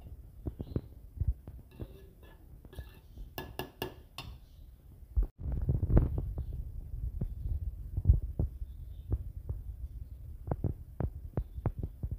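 Irregular dull thumps with scattered metal clicks and clinks: a steel serving spoon stirring, scraping and tapping in a metal pot of cooked rice.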